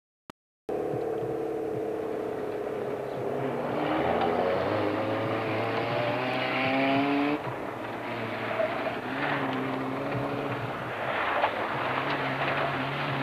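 Rally car engine revving hard on a gravel stage, its pitch climbing in steps, then dropping sharply about seven seconds in and running on more quietly with further rises. The sound drops out briefly at the very start.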